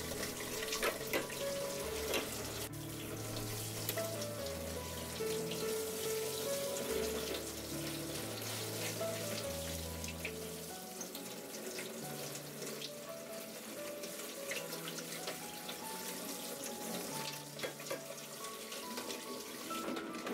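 Water from a kitchen-sink faucet spray head pouring and splashing over an amplifier's chassis and circuit board, under background music with a slow melody of held notes.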